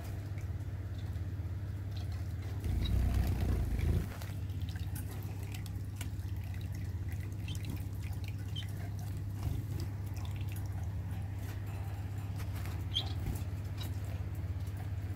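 Small electric pet drinking fountain running: water trickling and dripping from its flower-shaped spout into the basin over a steady low pump hum. A louder low rumble lasts about a second, about three seconds in.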